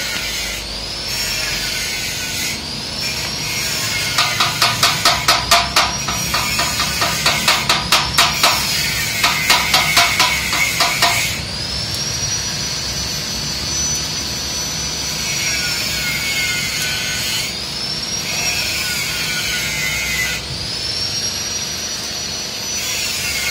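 Stick (manual arc) welding on a stainless steel tube: the electrode arc crackling and hissing, with a high whine rising and falling again and again. From about 4 to 11 seconds in, a run of quick sharp metal taps, about four a second.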